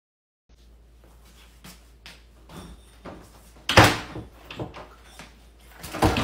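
A wooden interior door banged shut hard about four seconds in, after a few smaller knocks and shuffles. Another loud knock against the door comes right at the end.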